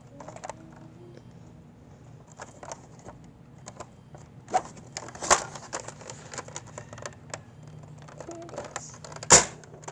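Plastic clicks and clacks of a Nerf Mega Magnus toy blaster being handled, irregular, with a few louder sharp clacks about four and a half, five and nine seconds in.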